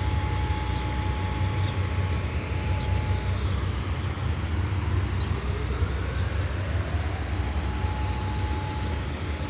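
Outdoor warning siren on test, taken for a rotating EOW siren: a steady tone that drops out about three seconds in, then rises slowly in pitch over a few seconds back to the steady tone. A steady low rumble runs underneath.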